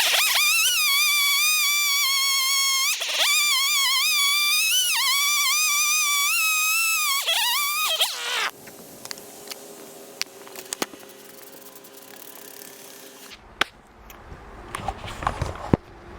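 Chainsaw with a ripping chain at full throttle, cutting through the end of a log: a loud, high whine whose pitch sags and recovers a few times under load. About eight seconds in it drops away suddenly to a quiet idle with scattered clicks.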